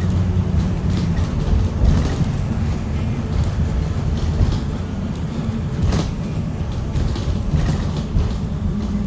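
Cabin of a 2018 Blue Bird Vision school bus under way: a steady low engine drone and road rumble, with a sharp knock about six seconds in.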